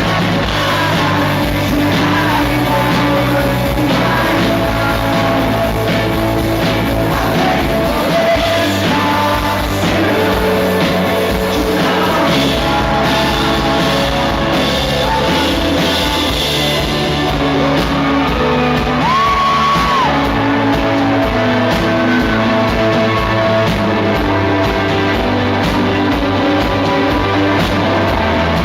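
A rock band playing live with a lead singer, full band with drums and guitars, loud and steady throughout.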